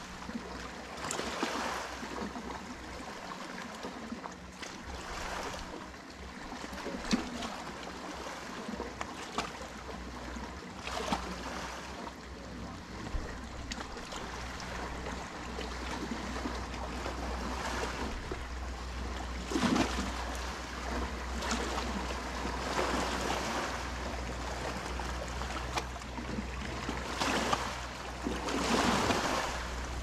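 Small sea waves lapping and splashing among shoreline rocks in irregular surges. Under them, a steady low hum, likely a motorboat engine out on the bay, grows stronger about halfway through.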